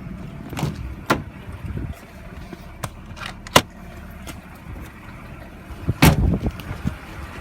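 BMW M52B25TU 2.5-litre straight-six idling with a steady low hum, broken by a handful of sharp, irregular knocks, the loudest about six seconds in. This is the clattering, knocking engine noise that the owner is trying to trace.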